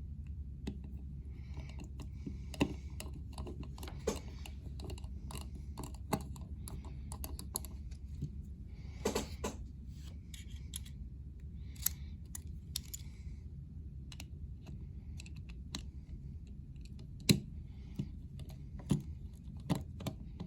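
Irregular small metal clicks and rattles of a Leatherman bit extension and driver bits being handled and snapped in and out, with a few short scraping slides and a steady low hum underneath.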